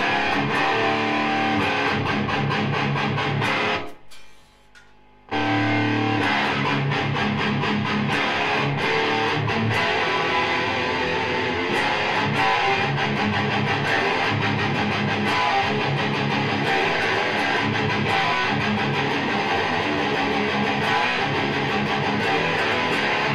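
ESP LTD EC-1000 electric guitar played with heavy distorted overdrive through an amplifier, chugging low riffs with ringing chords. It stops about four seconds in and starts again about a second later.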